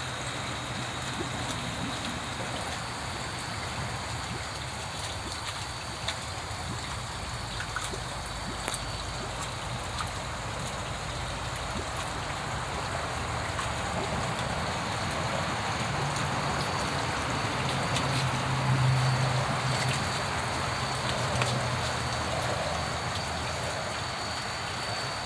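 Steady trickle of running water, with a low hum underneath that swells for a few seconds past the middle.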